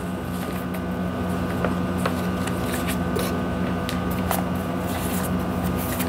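Steady electrical hum and buzz with scattered crackling clicks: interference in the audio chain, which the speaker suspects comes from headphones that are failing.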